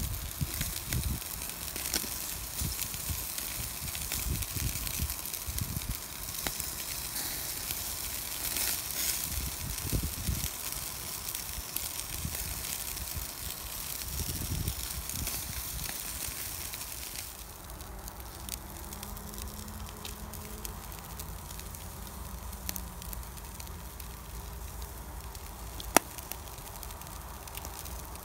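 Chicken sizzling on a charcoal grill, a steady hiss dotted with small crackles from the coals, thinning out about two thirds of the way through. One sharp crackle near the end.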